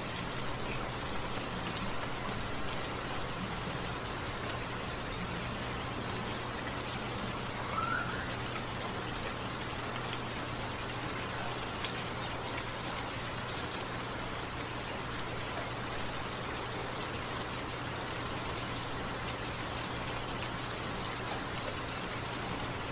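Steady rainfall, an even hiss of rain with individual drops ticking now and then.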